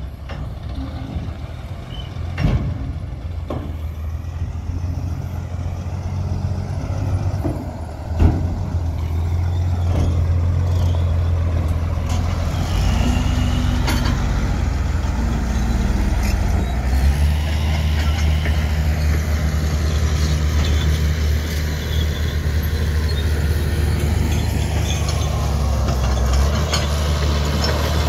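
Heavy diesel engines of a dump truck and a crawler bulldozer running steadily, getting louder about a third of the way in, with a few sharp knocks.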